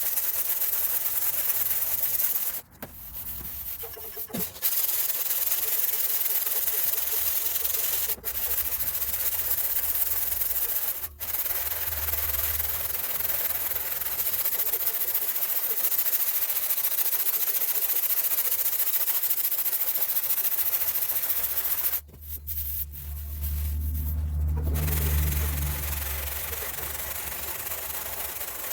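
Sanding on a steel car trunk lid: a steady, loud abrasive hiss that stops briefly a few times, with a lower hum coming in about two-thirds of the way through.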